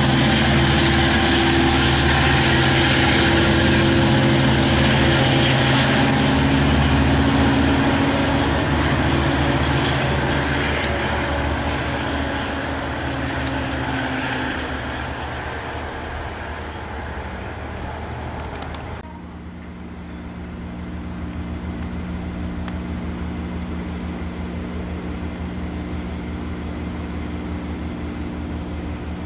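Long Island Rail Road diesel locomotive engine running loud and steady, slowly fading over the first half. About two-thirds of the way in the sound changes abruptly to a quieter, steady diesel engine hum.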